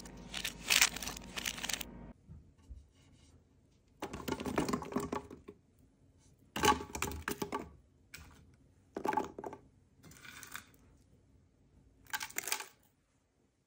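Handfuls of cut vegetables and dried red chilies dropped into a plastic blender jug, heard as short bursts of clattering and rustling about six times, with quiet gaps between.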